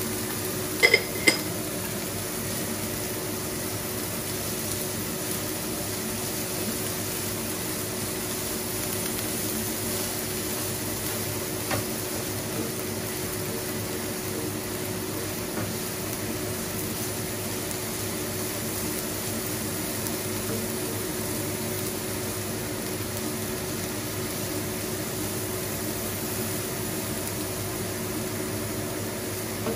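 French beans and carrots frying in a non-stick pan on a gas stove: a steady hiss with a low hum under it, and two sharp clicks about a second in.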